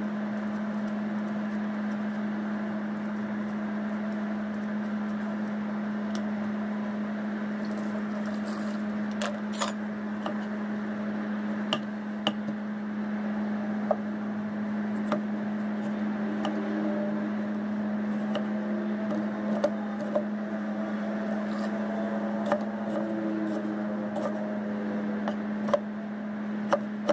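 Chef's knife cutting beetroot on a thick wooden chopping block: irregular sharp knocks of the blade hitting the wood, over a steady low hum.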